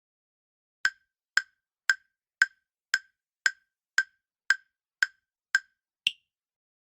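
Countdown timer sound effect: ten identical wood-block ticks about two a second, then an eleventh, higher-pitched tick near the end.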